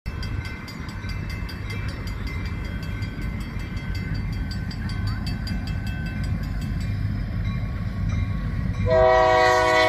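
Railroad grade-crossing bell ringing rapidly over a low rumble. About nine seconds in, the approaching locomotive's horn starts: a loud chord of several steady notes, the loudest sound here.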